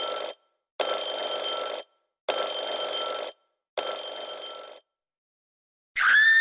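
A bell ringing in four separate bursts of about a second each, like a ringing telephone or alarm bell. Near the end a loud scream begins.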